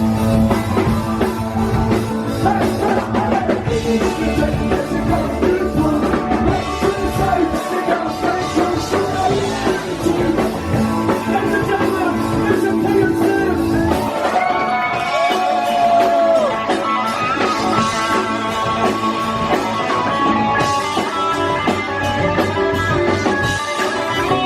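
Live rock band playing, with electric guitar, bass, drums and singing. About 14 seconds in, the bass and drums drop out, leaving a lighter guitar passage.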